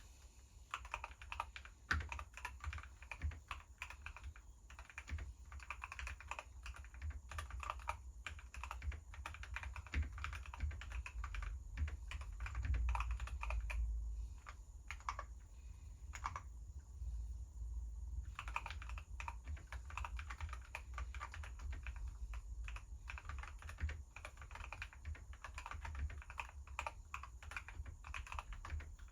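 Typing on a Keychron K12 Pro mechanical keyboard with Akko CS Jelly Black linear switches, an aluminium plate, switch pads and the Tempest mod. A fast, uneven run of keystrokes pauses for about two seconds a little past the middle, then picks up again.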